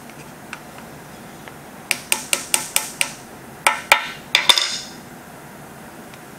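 Small hammer tapping brass handle rivets against a steel table: a quick run of six sharp taps, a short pause, then four more, each ringing briefly.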